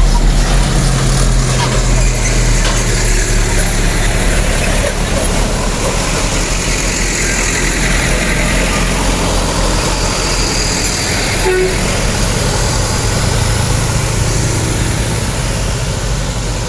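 Heavy truck engine running steadily with road noise, slowly easing off toward the end.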